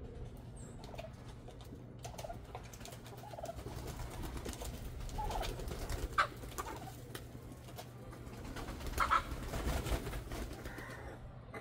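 A backyard flock of chickens and domestic turkeys calling and clucking softly, with louder calls about six and nine seconds in, over scattered small clicks and rustles.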